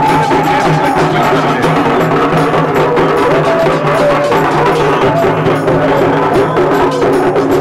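Live procession music: drums beating a fast, steady rhythm with a wavering melody over it.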